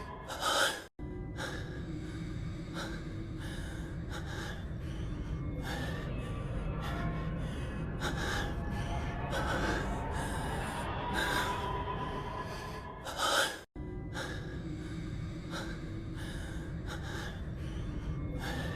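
A man's voice breathing heavily in repeated gasps over background music and a low rumble. The sound cuts out abruptly twice, about a second in and again about 14 s in, where the short clip restarts.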